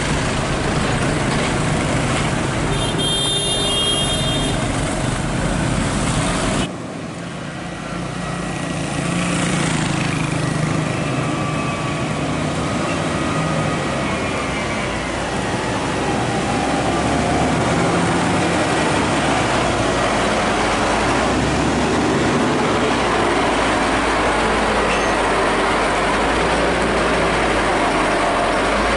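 Street traffic with motorbikes and minibuses passing, then, after a cut about seven seconds in, the diesel engine of a Zoomlion ZRT600 rough-terrain crane running steadily as it drives slowly past at close range.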